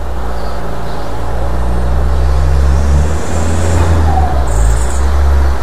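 A car driving past, a loud low engine rumble that shifts in pitch about three seconds in.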